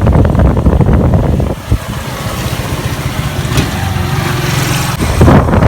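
A motor vehicle's engine running, with a rough, noisy rumble at the start and near the end and a steadier low hum in the middle.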